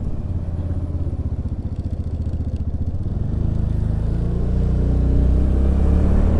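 Suzuki Burgman Street 125 scooter's single-cylinder engine running on the road, pulsing at low speed, then picking up speed about three seconds in, its note rising a little and getting louder.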